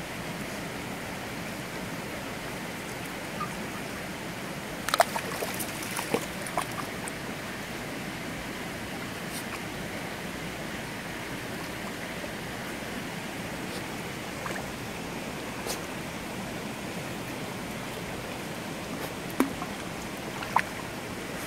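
Shallow stream flowing steadily over stones, with a few short sharp splashes from a terrier wading and pawing in the water: a cluster about five seconds in and two more near the end.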